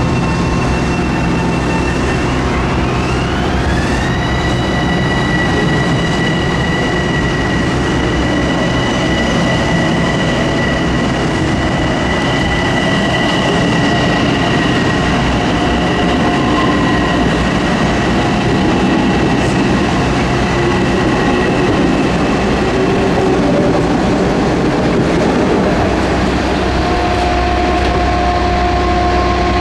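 Metro-North commuter train running close by: a steady, loud rumble of wheels on rails with an electric motor whine that rises about two to four seconds in and then holds steady.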